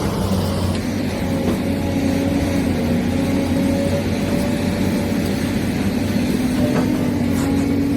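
Electric drive motors and gearboxes of a Huina 1593 remote-control excavator whirring steadily, the pitch drifting slightly up and down as the motors work.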